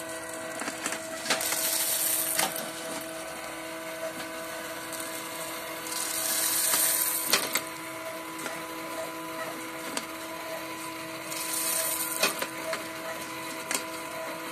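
Cooling tray of a DIY coffee roaster being emptied: the stirring-arm motor hums steadily while the arms sweep roasted coffee beans across the perforated stainless steel tray, with scattered clicks and rattles of beans. Three times, about five seconds apart, a rushing hiss swells up as beans are swept out through the discharge chute.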